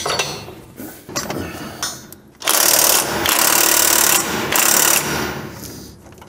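Socket ratchet clicking on long extensions as it tightens the nut that holds a front coil spring in place: a few single clicks, then three quick, loud bursts of clicking starting about two and a half seconds in.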